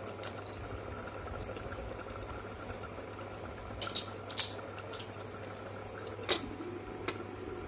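Mutton and its released juices boiling hard in an open pressure cooker on an induction cooktop at full heat, the water being boiled off to thicken the gravy. A steady bubbling over a low hum, with four sharp pops of spattering, the loudest about six seconds in.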